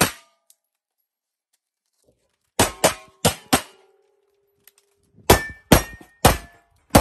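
Gunshots at close range. A quick string of four shots comes about two and a half seconds in, followed by a steel target ringing with a steady tone for over a second. Then comes a faster run of about five or six pistol shots, with steel plates ringing between them.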